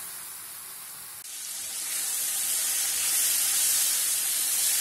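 Tomatoes, onions and spices sizzling in oil in a pan, the tomatoes starting to sweat out their juice. The sizzle is a steady hiss that gets louder about a second in.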